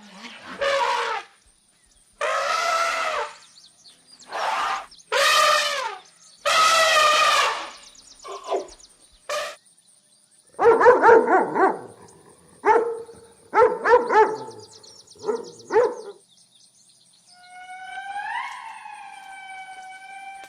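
A series of animal calls: several long pitched cries in the first eight seconds, then a run of short calls in quick succession, and a longer wavering call near the end.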